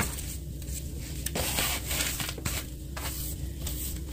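Small hand broom sweeping a floor: repeated scraping, brushing strokes, the longest about a second in.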